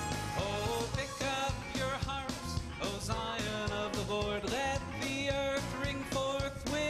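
Church choir performing a gospel song: sung melody lines over instrumental accompaniment with a steady beat.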